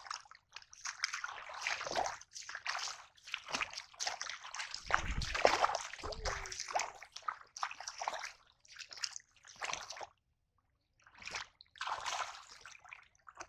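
Shallow muddy water splashing and sloshing as a person wades through it barefoot and gropes in it by hand, in irregular bursts, loudest about five to six seconds in, with a pause of about a second near the end.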